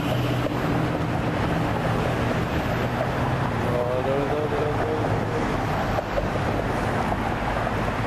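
Steady roar of passing street traffic, with wind buffeting the microphone and a low engine hum in the first moments.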